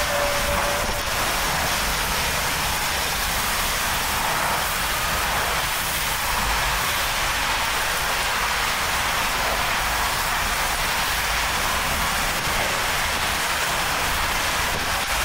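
Steady rushing of storm wind and rain with a low rumble underneath, even throughout.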